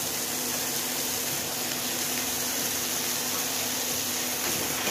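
Oil sizzling steadily in a kadhai under a heap of freshly added grated raw papaya and fried soya chunks, with a steady low hum underneath.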